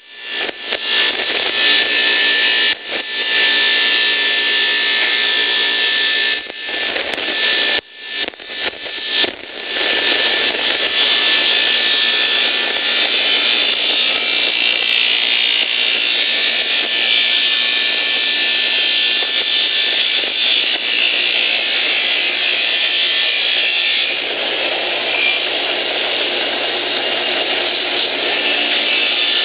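Wood-sawing machine running under load, ripping logs into boards with a loud, steady saw noise. The noise drops briefly a few times in the first ten seconds.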